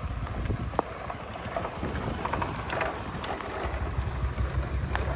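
Diesel earth-moving machinery running with a low, steady rumble, with scattered sharp knocks and clatter over it.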